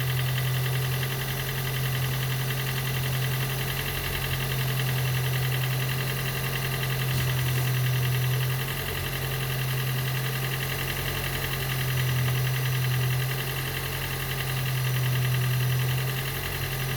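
Gen 2 Toyota Prius's 1.5-litre four-cylinder petrol engine running steadily, its low hum swelling and easing slightly every few seconds. The mechanic blames its hard starting on low compression.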